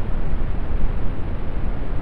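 Steady brown noise: an even, deep rushing hiss, strongest in the low end and fading toward the highs.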